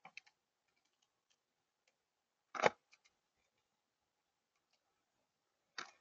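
Blue jay pecking and picking through seed and peanuts on a tabletop: scattered light clicks and taps, with one much louder knock about two and a half seconds in and a quick cluster of clicks near the end.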